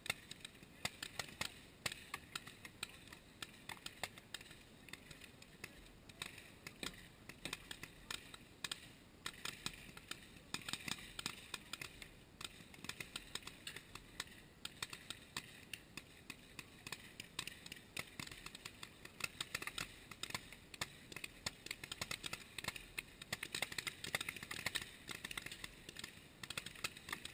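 Paintball markers firing in rapid, irregular strings of sharp pops, several shots a second, with the shooting getting thicker near the end.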